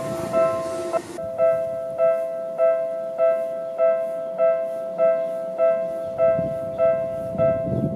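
Japanese railway level-crossing warning bell ringing, an electronic ding repeating evenly a little under twice a second. The noise of a passing train stops about a second in, and a low train rumble rises again near the end.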